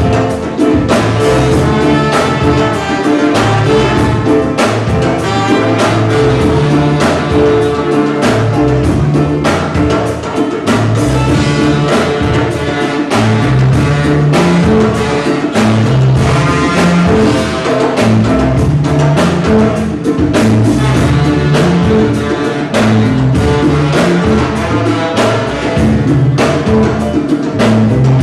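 Ska band playing live, saxophones and trombone over bass and drums, with a steady beat.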